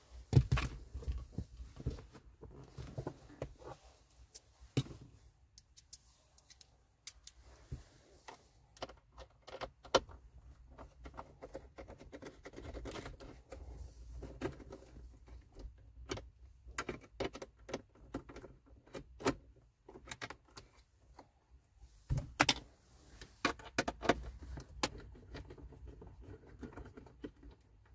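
Scattered clicks, taps and light rattles of hands and a screwdriver working at a car's plastic dashboard trim, taking out the screws of the instrument-cluster surround. The clicks come thickest right at the start and again near the end.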